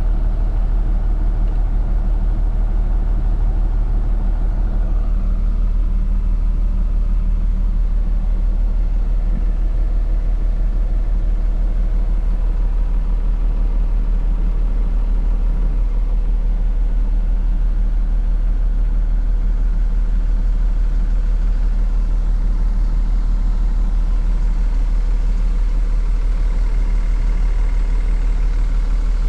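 A 1995 GMC Topkick truck's engine idling steadily, heard from inside the cab.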